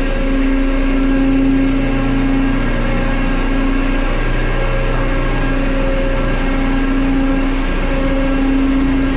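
Tanker ship's engine-room machinery running: a loud, steady drone with one strong hum and fainter tones above it that fade in and out a little.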